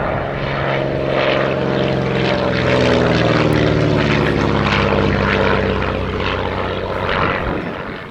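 North American Navion's six-cylinder Lycoming O-435 piston engine and propeller on a flypast. It swells to its loudest about three seconds in, then its pitch drops and it fades as the aircraft passes and moves away.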